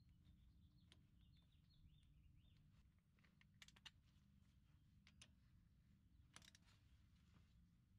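Near silence, with a few faint metallic clicks of a socket wrench being moved onto the driveshaft's flange bolts, and faint bird chirps in the first two seconds.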